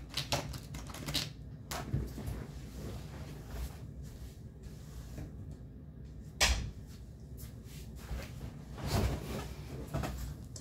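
Scattered light clicks and taps of plastic dice and a marker being handled over a paper game sheet on a table, with one sharper click about six and a half seconds in and a short rattle a little after nine seconds.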